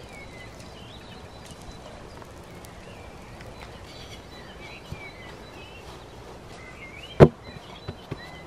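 A wooden spatula knocks sharply once against a stone cooking slab about seven seconds in, followed by a few lighter taps. Underneath there are small crackles and a steady hiss, with birds chirping.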